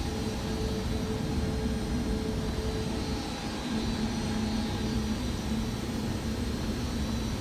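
Hospital air handler units with fan-wall fan arrays running: a steady, even rush of air with low hums under it. A higher hum drops out about three seconds in.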